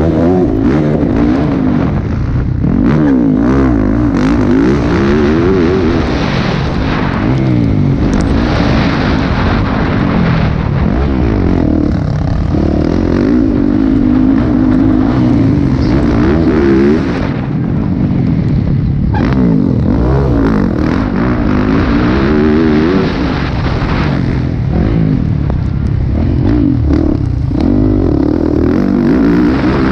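Motocross motorcycle engine at race speed, heard from the rider's helmet, its pitch repeatedly climbing and dropping as the throttle is opened and closed through the gears and turns.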